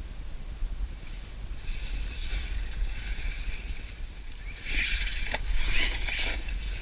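Brushless electric motor of a Mini Revo RC monster truck whining as the truck drives over dirt and leaves. The sound grows loud as the truck passes close, about five seconds in, with the pitch rising and falling as the throttle changes.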